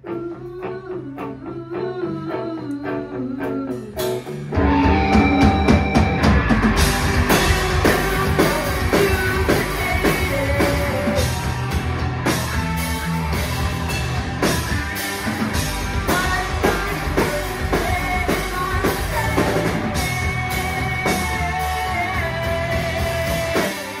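Live rock band playing electric guitars, bass guitar and drum kit through amplifiers. A lone guitar picks a quieter line at first, the full band crashes in loud about four and a half seconds in, and the music drops away just before the end.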